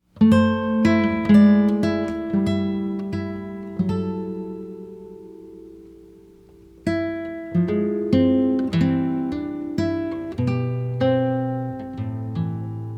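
Acoustic guitar music with plucked notes. A chord is left ringing and fading for a few seconds, then the picking starts again about seven seconds in.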